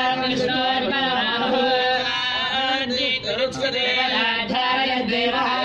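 Devotional chanting sung by a voice over a steady drone, running continuously.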